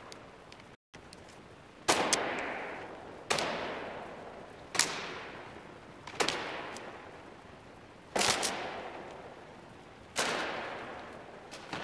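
A whip cracking sharply seven times, about every one and a half to two seconds, each crack ringing out in the echo of a large, bare hall.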